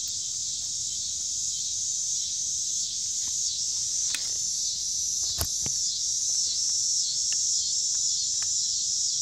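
A steady chorus of crickets chirping throughout, with a few light clicks from the washer and bolt being fitted to the mower's wheel about four to six seconds in.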